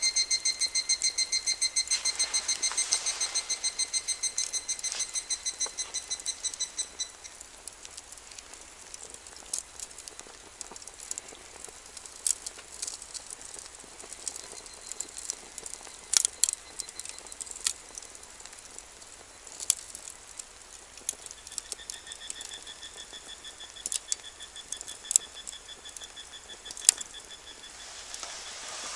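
Wood fire crackling with scattered sharp pops in a small metal fire box. A fast run of repeated high notes from an animal calling is the loudest sound for about the first seven seconds, and a lower run of the same kind comes back near the end.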